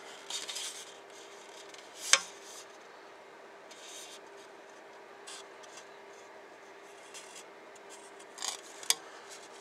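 Plastic model-kit parts being handled and turned over, with intermittent rubbing and rustling of plastic and packaging. A sharp click about two seconds in is the loudest sound, and another comes near the end, over a faint steady hum.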